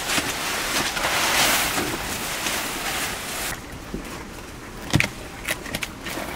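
Rustling and crackling of an armful of fresh green leafy fodder being dropped and shaken out for a cow. About three and a half seconds in it gives way to scattered clicks and a sharp wooden knock as charred sticks of firewood are moved about in an ash-filled hearth.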